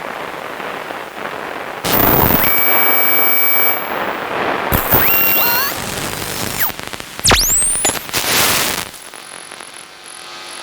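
A run of radio transmission interference effects: hiss swelling into loud crackling static with a steady tone, a pop followed by tones stepping upward like tuning, then a whistle that dives and sweeps back up. It ends with a short burst of static and a quieter hum with a faint high tone.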